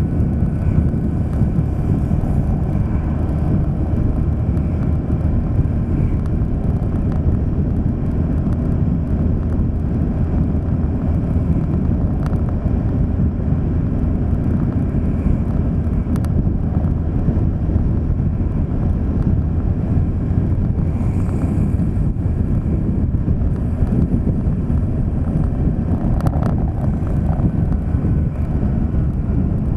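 Steady low rumble of a vehicle driving along a road, mixed with wind on the microphone.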